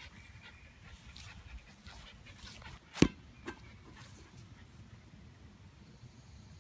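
Faint sounds from a dog at play, with a sharp knock about three seconds in and a softer one half a second later.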